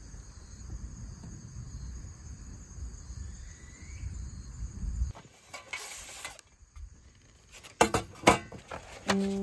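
Outdoor ambience of a low rumble and a faint steady insect drone, which cut off suddenly about five seconds in. Then a brief rustle and a few sharp clicks and knocks as camping gear is handled close to the microphone.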